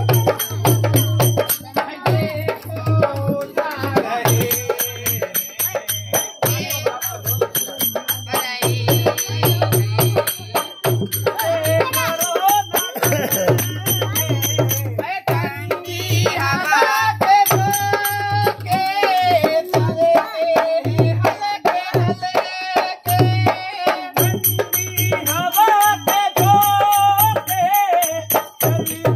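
Music: a folk-style song with singing over a steady, pulsing drum beat and light percussion.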